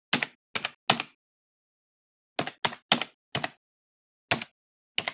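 Typing sound effect: single computer-keyboard keystrokes clicking in uneven groups of three or four, with pauses of about a second between the groups.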